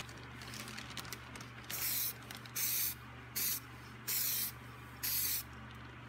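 Aerosol spray can of microwave interior paint hissing in five short bursts, each about half a second long, as a light dusting coat goes on. A low, steady hum runs underneath.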